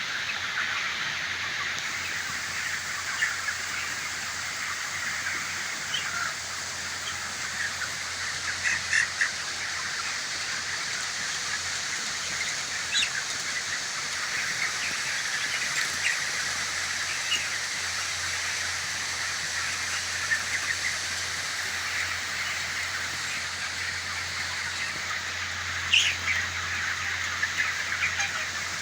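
Dense, steady chorus of many 26-day-old broiler chickens cheeping and chirping together, with a few louder single calls standing out, over a low steady hum.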